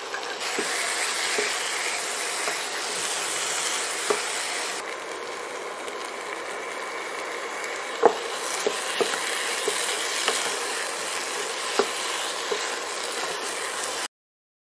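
Prawns cooking in an onion-tomato masala in a pan, a steady sizzle, with a spatula stirring and knocking against the pan a few times, loudest about eight seconds in. The sound cuts off suddenly near the end.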